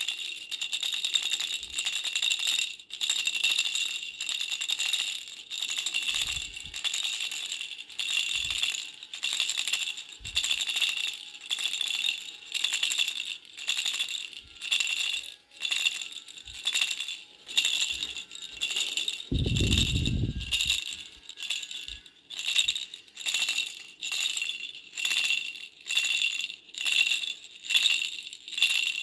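A pink butterfly baby rattle being shaken in short repeated bursts, its bells jingling with a high ring; the shakes come faster near the end. A low thud about two-thirds of the way through.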